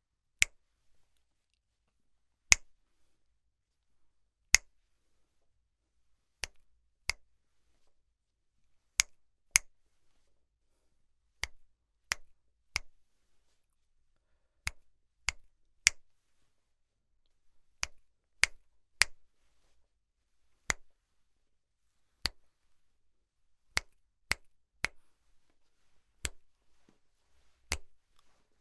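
Finger snaps, sharp and dry, with silence between them: single snaps about two seconds apart at first, then mostly in quick pairs, coming closer together near the end.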